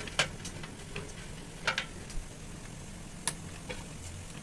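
Scattered sharp clicks and light knocks from a steel plate being rubbed with oil by hand, the loudest just after the start, near the middle and about three seconds in, over a low steady hum.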